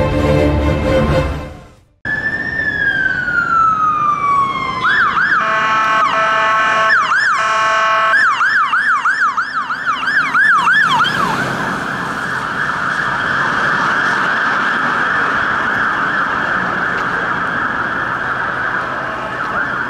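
Fire engine siren responding on an emergency call. It opens with a slow falling wail, switches to a fast yelp with two horn blasts in the middle, and from about halfway settles into a very rapid warble that runs on.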